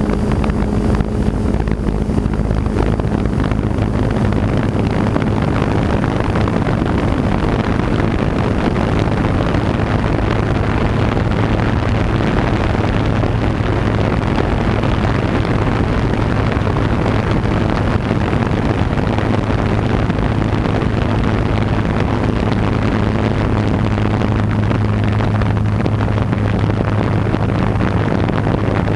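F550 hexacopter's six motors and propellers running steadily in flight, a constant low hum, with wind rushing over the onboard microphone.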